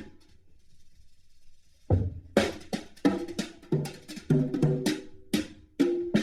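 Drumming music with a drum kit: a pause of about two seconds, then a heavy hit and steady strokes at about three a second with pitched ringing beneath.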